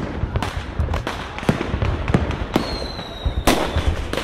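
Fireworks sound effect: a string of bangs and crackling pops over a low rumble, with a thin whistle just before the loudest bang about three and a half seconds in.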